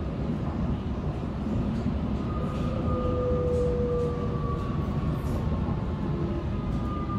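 Vienna U-Bahn U4 train running along the line, heard from inside the car: a steady rumble of wheels on rails, with thin high tones coming in about two seconds in and holding to the end.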